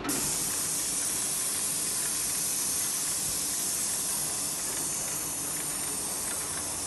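Airless paint spray gun of a HYVST SPT 490 sprayer hissing steadily as it atomizes paint under high pressure. The hiss starts at once when the trigger is pulled.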